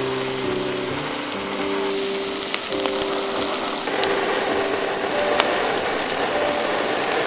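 Meat on a grill plate seared with a Max MBT-104 butane torch: a steady hiss and crackling sizzle with a few sharp clicks. Faint background music notes underneath.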